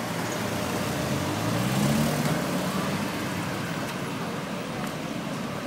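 Street traffic: a car engine rising in pitch as it passes about two seconds in, over a steady hum of city traffic.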